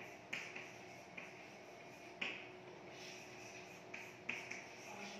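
Chalk writing on a blackboard: a series of short, faint scratches and taps as the chalk strokes out a word.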